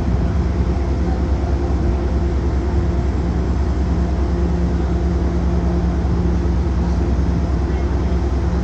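Diesel engine of an MBTA HSP-46 locomotive idling: a steady low rumble with a fast even throb and a constant hum.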